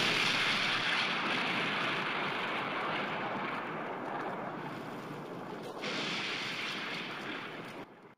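Intro sound effect: a rushing, hiss-like noise tail that slowly fades, swells again about six seconds in, and cuts off abruptly near the end.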